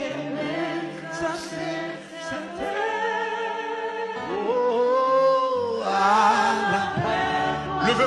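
Live gospel worship song: a male lead singer, with backing singers, over musical accompaniment. About halfway through he holds one long note with a slight waver.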